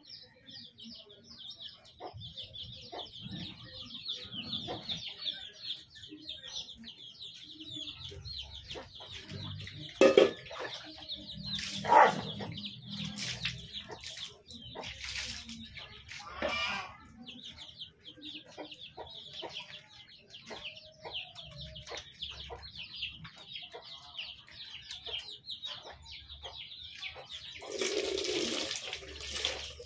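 Chickens: chicks peeping in a continuous high chatter, with a hen clucking and several louder calls from the flock between about ten and seventeen seconds in. A brief rush of noise comes near the end.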